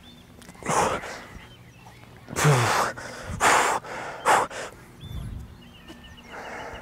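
A man breathing out hard and fast in short blasts, about five of them roughly a second apart, with a brief grunt in one, as he strains through push-up reps.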